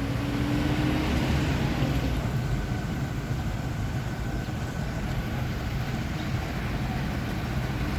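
Steady vehicle running noise with a low rumble; an engine tone rises slightly during the first second and a half.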